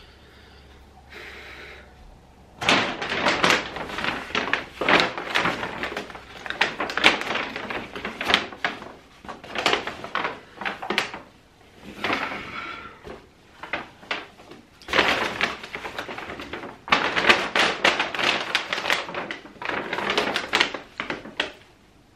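Brown paper carrier bag rustling and crinkling as it is handled, in repeated bursts with short pauses, starting about two and a half seconds in.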